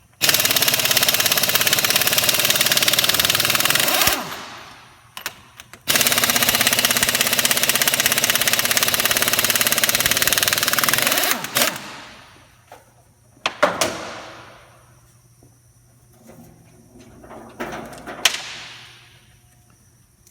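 A loud machine runs in two bursts with a fast, even pulsing, one of about four seconds and one of about five, each winding down over half a second when it stops. A few sharp knocks with short fading tails follow.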